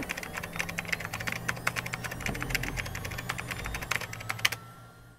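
Computer keyboard typing: a fast, uneven run of key clicks over a low steady hum, fading out near the end.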